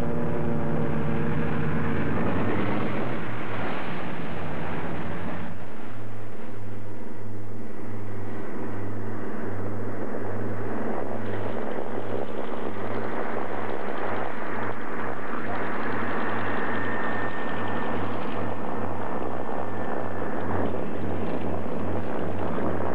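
Twin radial engines of a World War II PBY Catalina flying boat running as it comes down onto and runs across the water, under a rushing hiss. About five seconds in, the engine note drops and a steady throbbing beat between the two engines sets in.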